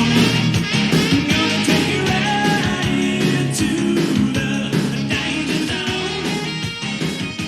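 Rock music with guitar, drums and a singing voice, easing slightly in level toward the end.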